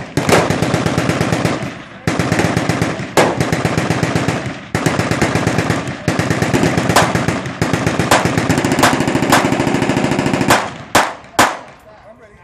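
Machine guns firing fully automatic at the range in long, rapid bursts with brief pauses, then two separate sharp shots near the end.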